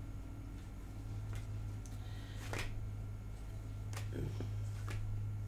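Tarot cards being shuffled and handled in the hands: a handful of light, separate card clicks and flicks, over a steady low electrical hum.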